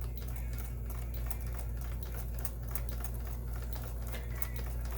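Kenmore 158.1760 sewing machine running steadily while stitching, a steady motor hum under fast, even needle ticking.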